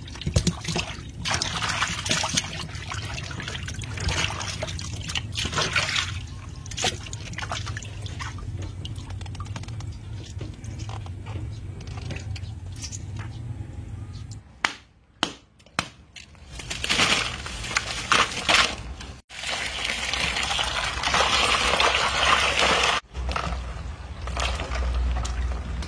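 Water splashing and sloshing in irregular bursts as live eels thrash in a shallow tub and are grabbed by hand, then writhe in a basin of water and ice. The sound cuts out abruptly a couple of times.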